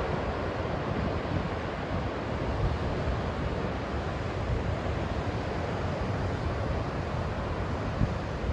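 Steady noise of heavy surf from a stormy sea breaking on a beach, mixed with wind buffeting the microphone.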